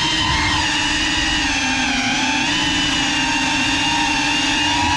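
GEPRC Cinelog 35 cinewhoop quadcopter's motors and propellers whining steadily, the pitch dipping and rising gently with the throttle.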